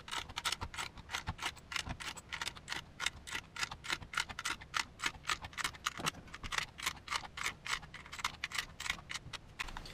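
MagLula AR15-M16 speed loader clicking rapidly as its lever is rocked back and forth and rifle cartridges are dropped one at a time into a Magpul Gen M3 30-round magazine. Sharp clicks, several a second, without a break.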